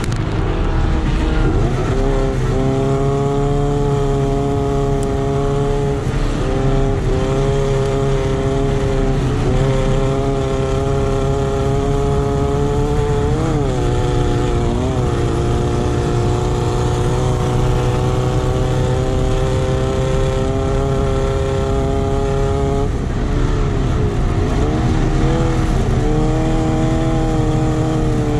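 Off-road racing buggy's engine heard from on board, running hard at a mostly steady high pitch. Its pitch dips and climbs back a few times, most markedly about two thirds of the way through. A low rumble runs underneath.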